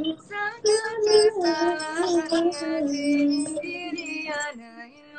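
A woman singing unaccompanied, a slow, ornamented vocal line of long held notes that slide and bend between pitches, in the manner of Javanese sinden singing.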